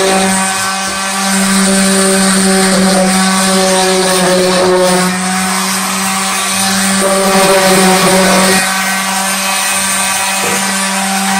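Electric random orbital sander running steadily against plywood, a constant motor hum with the hiss of the pad on the wood, dipping briefly in level a few times as it is moved over the panel.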